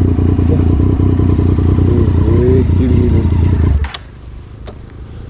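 Motorcycle engine running with heavy wind noise on the rider's microphone, cutting off suddenly about four seconds in, followed by a couple of sharp clicks and quiet roadside ambience.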